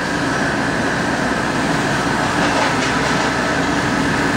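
Foam convoluter (eggcrate profile cutting machine) running steadily as a foam block is fed into its rollers: a constant low hum with a higher whine over an even mechanical noise.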